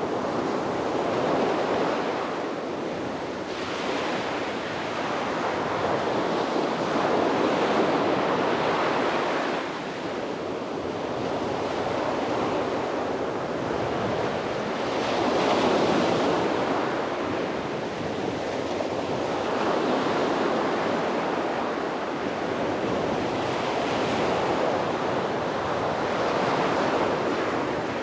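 Sea waves breaking and washing onto a beach, the surf swelling and ebbing every few seconds in a steady rhythm.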